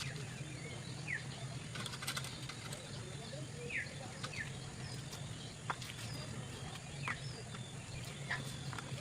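Birds chirping: short falling calls every second or two, over a steady low hum.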